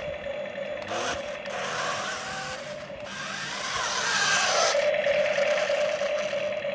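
Small electric drive motors of a toy RC tank with mecanum wheels whining as it drives and turns across artificial turf, getting louder about halfway through.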